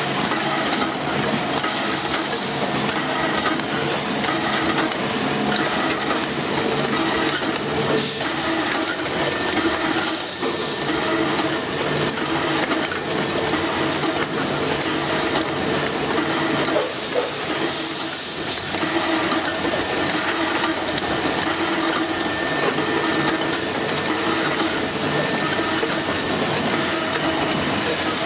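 Semi-automatic aerosol can line running: a steady machine din with continual metallic clinking and clattering over a constant hum.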